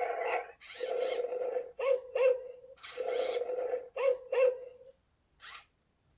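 Toy robot dog's speaker playing a recorded dog sound effect: a rough, drawn-out call followed by two short yelps rising in pitch, the pattern heard twice, with a brief faint sound near the end.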